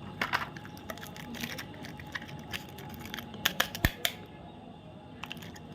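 Plastic chocolate bar wrapper being handled and torn open, crinkling with a run of sharp crackles, loudest in a cluster a little over halfway through.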